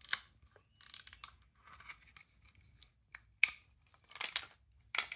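Plastic wind-up toy robot pen handled: a string of irregular clicks and short scraping rasps.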